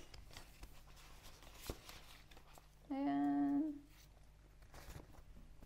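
A woman hums one short, level note about three seconds in, amid soft rustling and clicks of paper and cardboard being handled.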